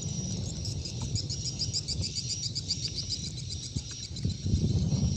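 Insects chirping in rapid, even pulses, high-pitched, over a low rumbling noise that grows louder near the end.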